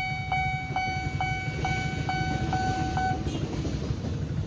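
Level-crossing warning bell dinging about twice a second, stopping about three seconds in, over the steady low rumble of idling motorcycles and a passing CC201 diesel locomotive.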